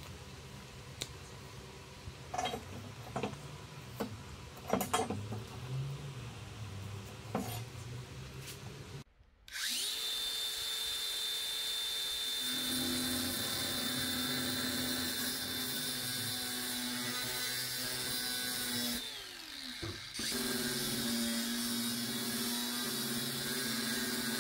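A few light clicks and taps of hand work on a rusty steel bar. About nine seconds in, a DeWalt angle grinder starts with a steady high whine and cuts into the bar with a cut-off disc. Near the end it winds down, its pitch falling, then restarts and cuts again.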